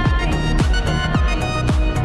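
Background music: an electronic dance track with a steady beat of about two kicks a second.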